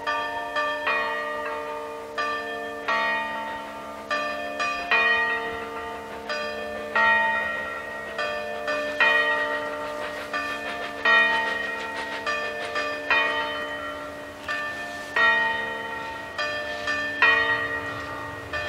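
Bells ringing a repeating pattern of struck notes: a loud strike about every two seconds with lighter strikes between, each note ringing on and fading away.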